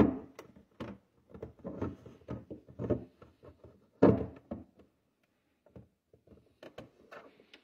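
Plastic Waterdrop replacement water filter cartridge being pushed into the LG refrigerator's filter housing. There is a sharp plastic thunk at the start and another about four seconds in, with smaller knocks, clicks and scraping between them.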